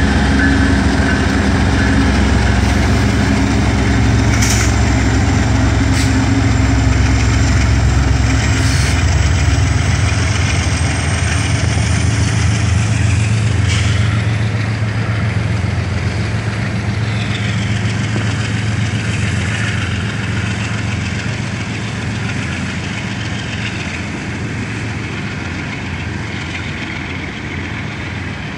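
BNSF diesel-electric locomotive of a coal train passing close, its engine's low drone strong for the first several seconds and then fading as coal hopper cars roll by with a steady rumble. A few sharp clicks stand out in the first half.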